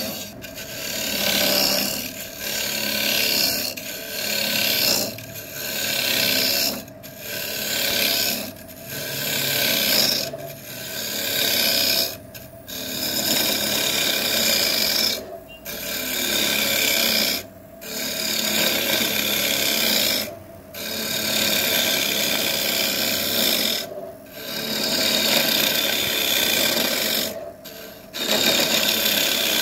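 Woodturning on a lathe: a tool or abrasive worked against the spinning wood in repeated scraping passes of one to three seconds each, broken by short pauses.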